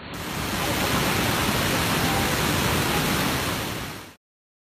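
Waterfall: a steady, loud rush of falling water that starts suddenly and cuts off abruptly about four seconds in.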